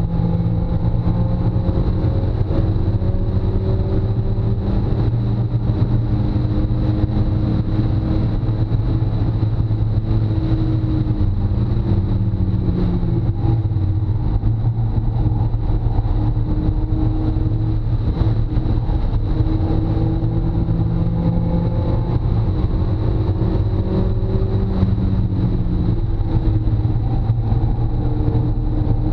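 Mazda Miata's four-cylinder engine heard from inside the cabin at track speed, a steady loud drone over road and wind noise, its pitch dipping and climbing several times as the driver comes off and back onto the throttle.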